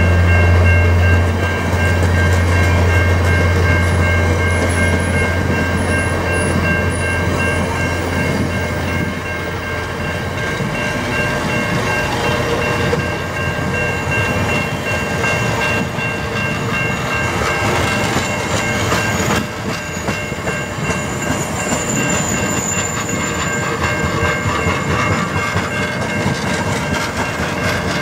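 Budd stainless-steel passenger cars of VIA Rail's 'The Canadian' rolling past, wheels clicking over the rail joints, while a level crossing bell rings steadily. A low hum fades out about ten seconds in.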